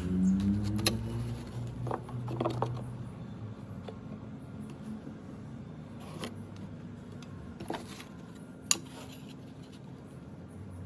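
Scattered light clicks and knocks, a few seconds apart, over a steady low hum; a rising hum fades out within the first second.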